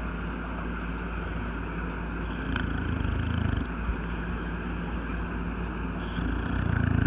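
English bulldog snoring: a steady low rumble that swells louder with a breath about two and a half seconds in and again near the end.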